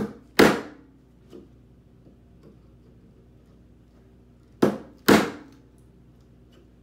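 Mallet striking a mortise chisel to chop a mortise in a board: two pairs of blows, each a lighter tap followed by a harder strike, one pair at the start and one near the end, over a faint steady hum.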